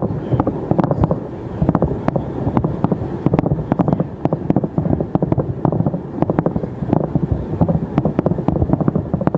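Fireworks going off in a dense barrage: many sharp bangs and crackles in rapid, unbroken succession over a low rumble, picked up on a phone's microphone.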